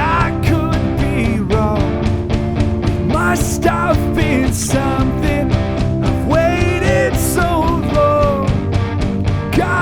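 Full-band rock track playing: drums keeping a steady beat under bass and guitar, with a wavering lead melody that slides up and down on top.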